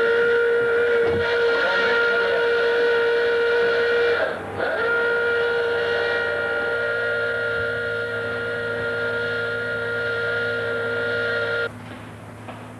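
Scramble alarm hooter sounding a loud, steady tone that dips in pitch and comes back about four seconds in, then cuts off suddenly near the end. A low steady hum starts about halfway through.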